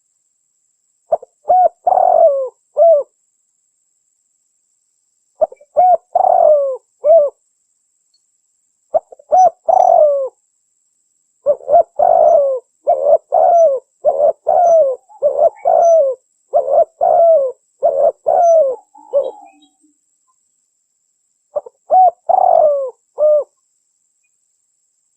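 Spotted dove (terkukur) cooing: phrases of three to five short coos, each rising then falling in pitch, separated by a few seconds of silence, with one longer unbroken run of coos midway. This is the male's territorial song, played as a lure to draw rival doves.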